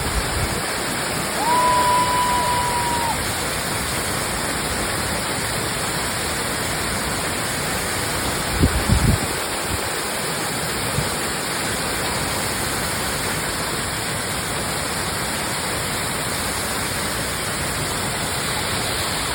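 Waterfall rushing, a steady, loud roar of falling water. About a second and a half in, a steady tone sounds for about a second and a half, and a few low thumps come near the middle.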